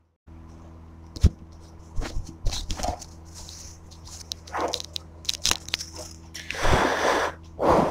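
Steel hand trowel scraping and tapping a bed of semi-dry 1:6 cement-sand mortar: scattered gritty scrapes and sharp ticks, with a longer, louder scrape near the end.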